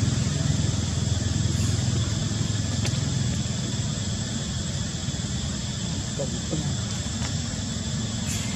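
A low, steady engine hum, like a motor vehicle running somewhere off camera, fading slowly, over an even background hiss.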